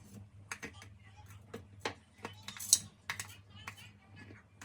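Irregular light clicks and taps, about a dozen of them, over a low steady hum.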